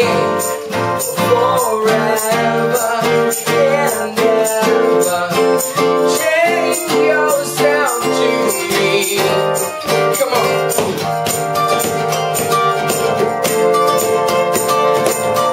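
A band playing a song, a voice singing over pitched instruments and a steady beat of percussion.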